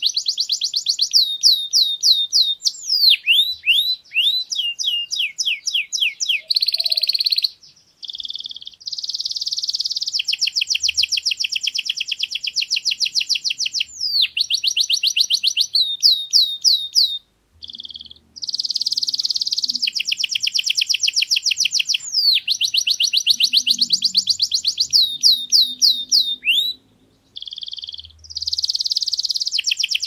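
Domestic canary singing: long phrases of fast, high-pitched trills and rapid runs of repeated notes, broken by a few brief pauses.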